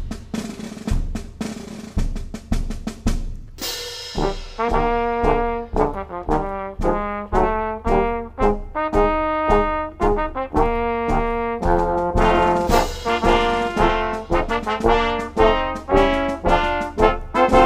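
Small brass-and-percussion ensemble playing an armed-forces march medley. For the first few seconds only snare and bass drum keep the march beat; then trumpets, flugelhorn and trombones come in with a crash of the cymbals about four seconds in, playing short punchy chords over the drums, with another cymbal crash a little past the middle.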